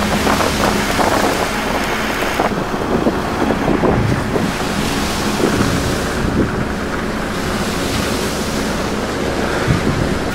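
Wind buffeting the microphone beside a slowly moving car, over the car's steady low running hum.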